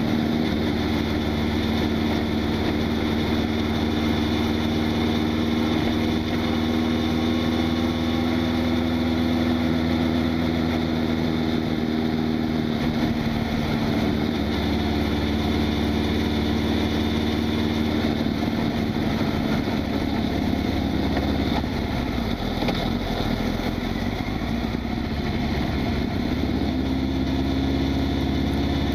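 Honda CB1000SF motorcycle's inline-four engine running steadily, its pitch dipping slightly twice and rising again near the end.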